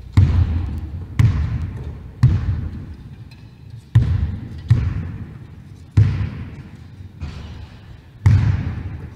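A basketball bounced on a wooden sports-hall floor as it is dribbled, about once a second, each bounce a sharp thud that echoes round the hall.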